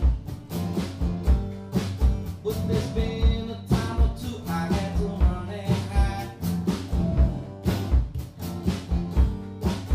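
Live song: two acoustic guitars strummed, a man singing, and a drum kit keeping a steady beat of about one and a half hits a second.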